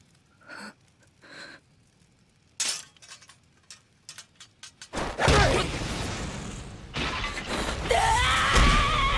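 Animated sound effects: a couple of faint gasps, then a run of sharp metallic clicks from the blade handles of 3D maneuver gear being gripped, then about five seconds in a sudden loud rushing blast as the gear launches, with a shout rising over it near the end.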